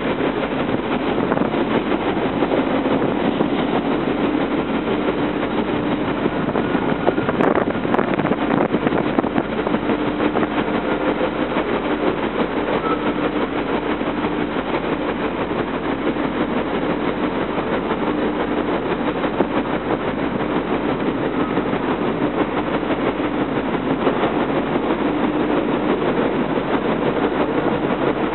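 Steady rumble of heavy machinery running, with a low hum that comes and goes. There is a single short knock about seven and a half seconds in.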